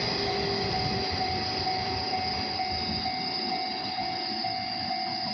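Shinano Railway 115 series electric train running past a level crossing, its rumble slowly fading as it moves off. Over it the crossing's warning bell keeps ringing in a steady, evenly repeating tone.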